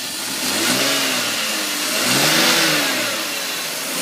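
BMW 530's engine revved up and back down twice, the pitch rising and falling over about a second each time. The car has a rough idle that the owner puts down to a vacuum leak.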